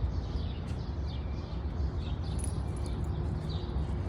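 A small bird calling over and over in short, high notes that slide downward, about one a second, over a steady low rumble.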